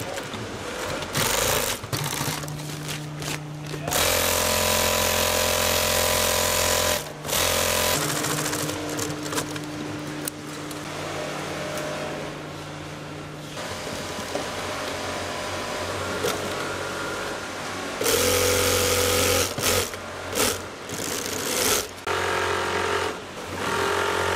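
Industrial sewing machines stitching tent fabric and edge binding, running in stop-start runs of a few seconds each with a steady mechanical hum.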